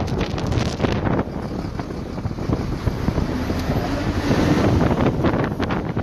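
Snowstorm wind buffeting the microphone, gusting hardest in the first second and again near the end, with a vehicle engine running underneath.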